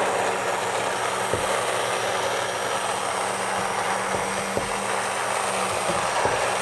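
Electric immersion hand blender running steadily in a pot of thick cooked wheat, puréeing it, with a constant motor hum and a couple of soft knocks.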